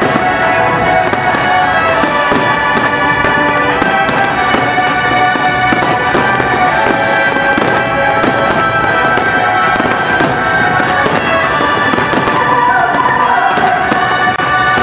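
Fireworks going off in rapid, frequent bangs and crackles over loud music with sustained tones.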